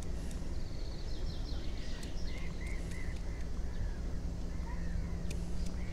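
Small birds chirping, with a quick falling trill and several short repeated chirps, over a steady low outdoor rumble, with a few sharp clicks.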